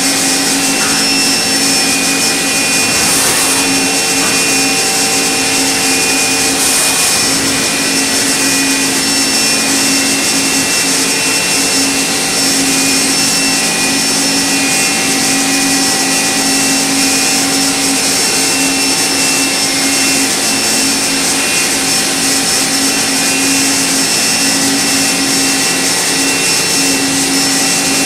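Okuma MB-5000HII horizontal machining center running, its spindle turning a small cutter at the workpiece: a steady whine of several held tones over an even hiss.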